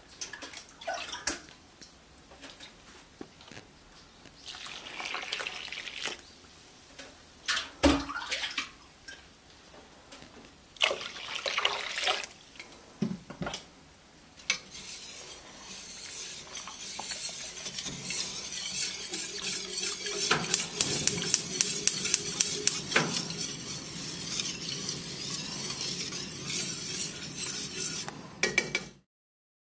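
Water poured into a metal pot of glutinous rice flour, then a wire whisk stirring the mixture briskly. The whisk's wires tick rapidly against the pot.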